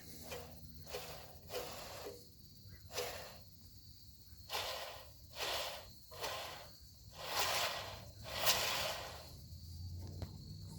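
Belt and disc of a bench belt-and-disc sander turned by hand, giving a string of short scratchy swishes, roughly one a second and loudest around the middle, over a faint low hum. The belt and disc turn freely, although under power the motor only hums without driving them.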